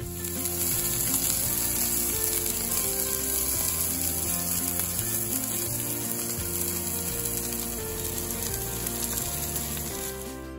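Steak searing in a small cast-iron skillet over a gas cartridge camp stove: a loud, steady sizzle of fat and juices. It starts suddenly and fades out near the end.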